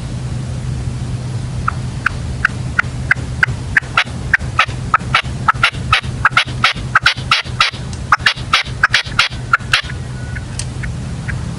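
Caged decoy red-legged partridge (reclamo) calling: a run of short, sharp calls that speeds up and grows louder, about three to four a second at its height, then stops near the end. A steady low hum sits underneath.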